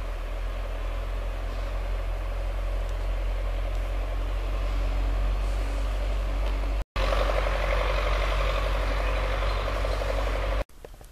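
Small forest stream running: a steady rush of water with a low rumble under it. It breaks off for an instant about seven seconds in and comes back louder, then drops away sharply near the end.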